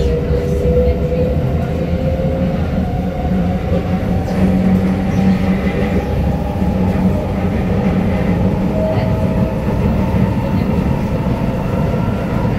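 Cabin noise of a Kawasaki Nippon Sharyo C751B metro train running on elevated track: a steady rumble of the wheels on the rails, with a motor whine that rises slowly in pitch.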